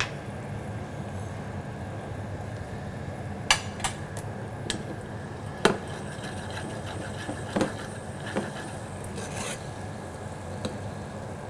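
Kitchen utensil knocking against a wok now and then, about seven short sharp clicks, while a sauce thickened with cornstarch slurry is stirred, over a steady background hum.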